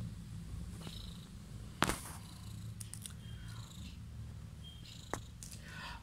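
Mother cat purring steadily while nursing her kitten. Two sharp clicks cut in, about two seconds in and again about five seconds in.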